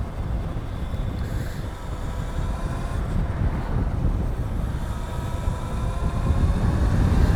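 Wind rumbling on the microphone while riding an electric Razor fitted with a 5 kW Hotpaxx motor kit. Under it is a faint motor whine that rises slightly in pitch in the second half.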